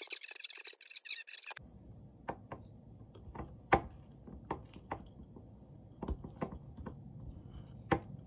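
A stylus scratching on a tablet's glass screen for about a second and a half. Then a spoon clicks against a glass bowl of yogurt about nine times at uneven intervals, over low room noise.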